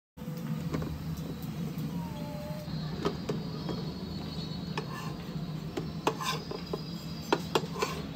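Rice-flour batter cooking on a hot electric griddle: scattered sharp crackling clicks over a steady low hum. The clicks come more often near the end, as a metal spatula lifts and folds the bread.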